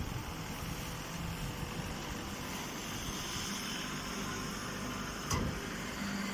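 Steady machine noise with a low hum, and a single sharp knock about five seconds in.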